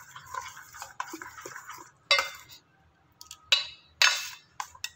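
Steel ladle stirring thick mango pulp in a stainless steel pot: wet scraping and sloshing for about two seconds, then three sharp metallic clinks of the ladle against the pot.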